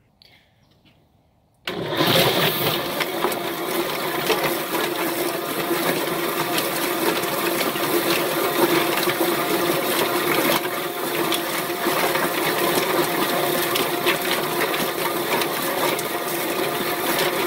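Kitchener drum chicken plucker switched on about two seconds in and running steadily: a motor hum under the rush of hose water spraying into the drum, with many small slaps as the spinning plate tumbles a scalded chicken against the rubber plucking fingers.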